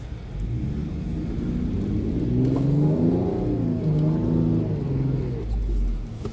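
A car engine revs up and down several times, with its pitch rising and falling: a car stuck in deep snow trying to power its way out.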